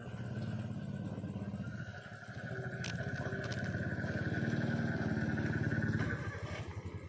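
An engine running with a rapid low pulsing, growing to its loudest about five seconds in and dropping off near the end.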